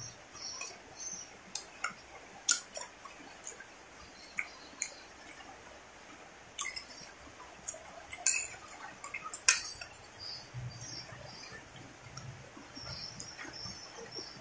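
Close-up chewing of soft rice with tuna offal and roe, with scattered wet mouth clicks and lip smacks at irregular moments.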